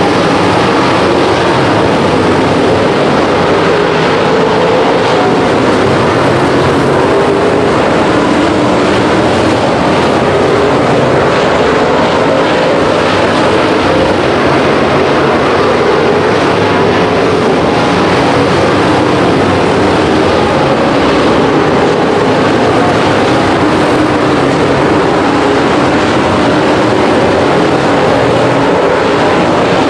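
Race car engines running hard through a feature race on a dirt track: a loud, unbroken drone that never lets up.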